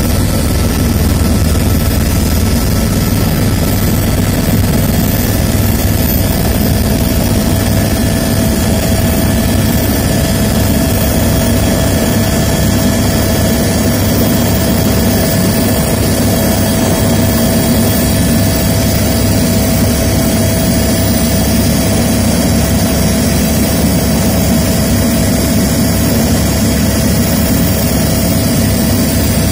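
Steady helicopter engine and rotor noise, loud and unchanging, with a constant whine over a low drone.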